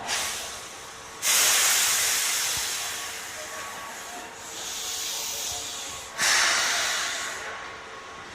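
Two sudden bursts of compressed-air hiss from a Keihan electric train, one about a second in and another about six seconds in, each fading away over a few seconds.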